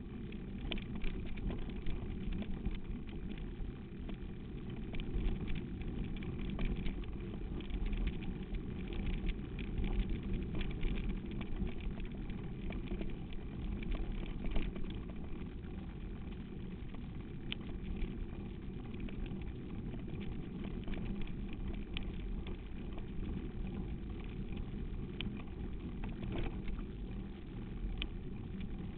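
Steady low rumble of wind and travel over a rough dirt track, picked up by a moving camera, with frequent small rattles and knocks.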